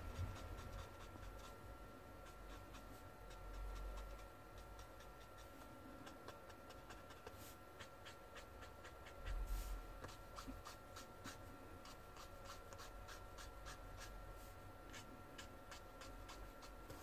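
Grey marker nib stroking across kraft paper: faint quick shading strokes, coming several a second in the second half, with a soft low thud about nine seconds in.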